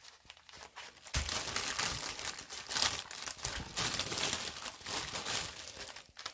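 Plastic packaging crinkling and crackling as it is handled, starting about a second in and continuing in irregular bursts until near the end.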